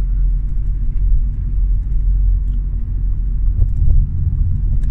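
Low, steady rumble of a car driving along a road, heard from inside the cabin: engine and tyre noise, with a few faint clicks and rattles.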